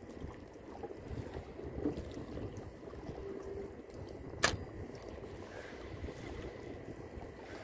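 Water lapping and sloshing against the hull of a small fishing boat, an uneven low rumble with no engine running. One sharp knock about halfway through.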